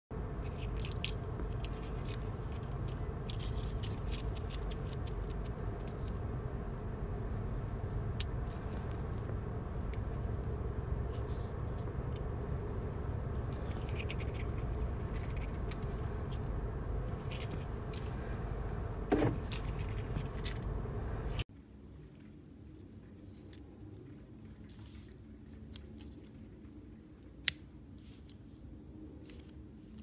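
A pepper-spray keychain and keys jangling and clicking as they are handled, over the steady low hum of a car interior, with a brief rising tone about nineteen seconds in. About twenty-one seconds in the hum cuts off abruptly, leaving a quiet background with a few sharp clicks from handling a pepper-spray canister.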